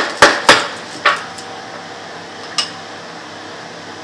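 Sharp knocks of a kitchen spatula against a dish or mould: a quick run of three in the first half second, another at about a second, and a last, lighter one about two and a half seconds in.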